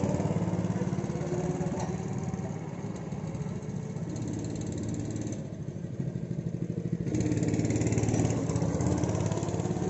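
Go-kart engines running. One kart's engine pulls away and fades as it drives off, then about seven seconds in a kart's engine grows louder again as it comes near.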